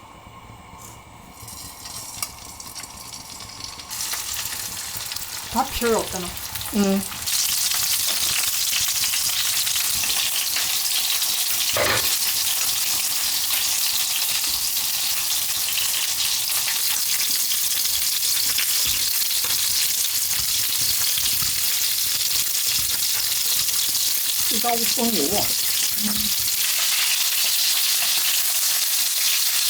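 Food frying in hot oil: the sizzle swells about four seconds in, then becomes a loud, steady sizzle from about seven seconds on, with a sharp click around twelve seconds.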